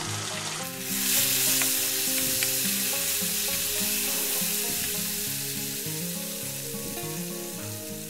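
Ginger, chilli, coriander and cumin paste with turmeric sizzling in hot mustard oil in a steel kadai while a spatula stirs it. The sizzle jumps up about a second in as the paste is stirred, then eases off near the end; the masala is frying until the oil separates. Background music plays underneath.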